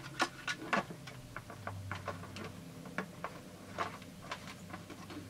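Irregular light clicks and knocks from the plastic housing of a Husqvarna 350 chainsaw being handled and set down on a wooden bench board, sharpest in the first second.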